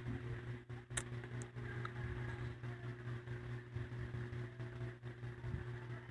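A steady low hum made of a few held tones, with a single sharp click about a second in.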